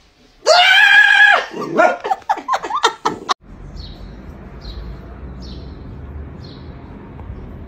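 A short, loud, steady-pitched fake scream, then a quick string of high, wavering yelps and cries from a startled pet dog. After a sudden cut, faint short high chirps repeat about once a second over a low steady outdoor hiss.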